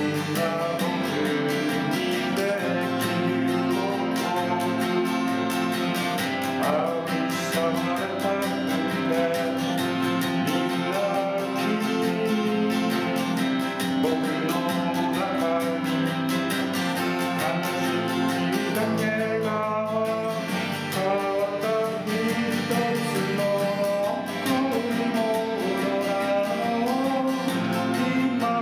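A song played live on acoustic guitar, strummed steadily, with a voice singing over it.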